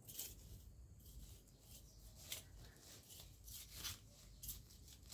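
Faint rustling of leaves and stems being handled in a bush, with a few short crisp rustles scattered through.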